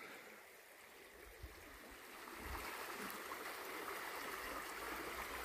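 Rain-swollen, muddy river flowing fast: a faint, steady rush of water, growing a little louder about halfway through.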